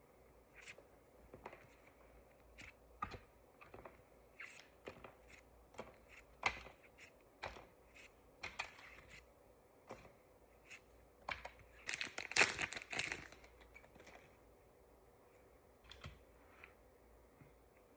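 Cardboard and plastic packaging of a trading-card box being handled and torn open: scattered clicks and rustles, with a longer, louder stretch of tearing and crinkling about twelve seconds in.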